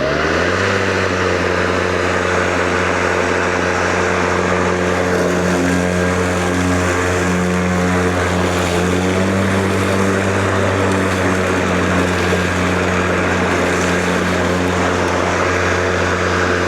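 Ryobi 40V cordless lawn mower's electric motor and spinning blade cutting long grass. The pitch rises as it spins up at the start, then it holds a steady hum with a rushing hiss, and it winds down at the very end.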